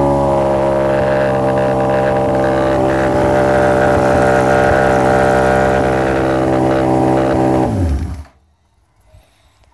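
Honda CBX1000's inline six-cylinder engine, on Keihin FCR carburettors and an AJKO titanium exhaust, idling steadily. About eight seconds in it is switched off and runs down to a stop.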